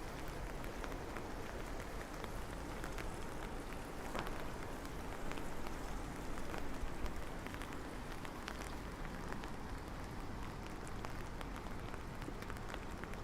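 Steady rain falling, with many separate drops ticking sharply on nearby surfaces.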